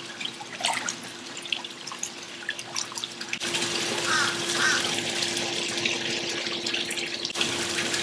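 Pool water gurgling and splashing around a suction-side automatic pool cleaner and its hose as they are set in the pool, over a steady hum.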